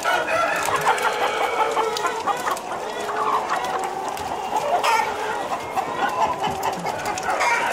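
Many caged laying hens clucking and calling at once, a dense overlapping chorus. A single sharp click comes about five seconds in.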